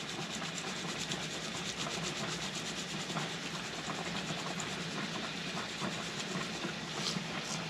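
Pot of water with pasta at a rolling boil on the stove: a steady bubbling hiss.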